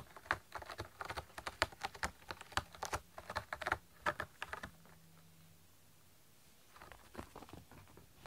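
Cat clawing a corrugated cardboard scratcher: a run of quick, dry scratching strokes that stops about five seconds in, with a few more faint scrapes near the end.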